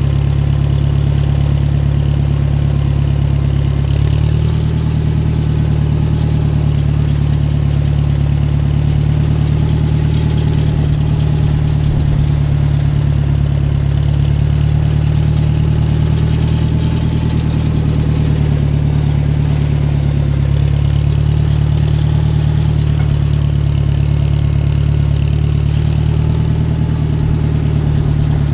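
Small farm tractor's engine running steadily as it drives, heard up close, picking up slightly about four seconds in.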